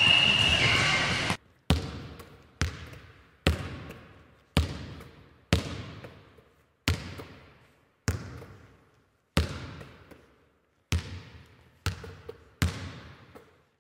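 Gym noise with voices cuts off abruptly about a second and a half in. Then come about a dozen single sharp thuds, roughly one a second and irregularly spaced, each trailing off in a ringing echo like a ball bounced in a large hall.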